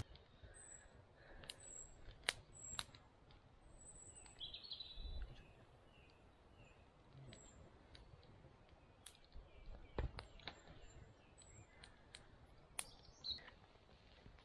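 Faint bird chirps over near-silent woodland, with a few sharp snaps from the wood fire.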